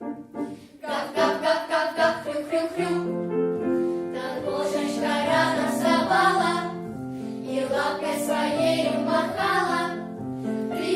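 A vocal ensemble singing a children's song together over instrumental accompaniment, with short broken phrases in the first second and then sustained melody.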